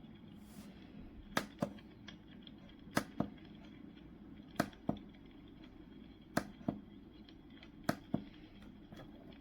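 Sharp clicks in pairs, five pairs evenly spaced about a second and a half apart, over a low steady hum.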